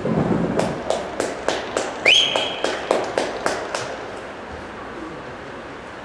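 Rhythmic hand clapping: about a dozen sharp claps in a steady beat of roughly three a second, after a loud burst of noise at the start. A single whistle rises and holds briefly about two seconds in.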